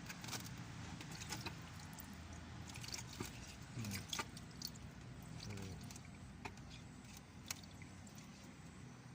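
Tata 1615 six-cylinder diesel engine running with a steady low hum, with irregular sharp clicks and knocks over it. The engine has a damaged piston, the cause of its bad sound.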